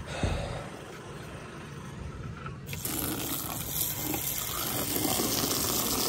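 Water from an outdoor shower hose running and splashing onto wooden decking and a sandal, a steady hiss that starts about two and a half seconds in.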